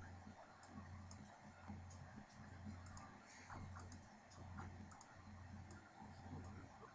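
Faint, scattered computer mouse clicks over a low hum.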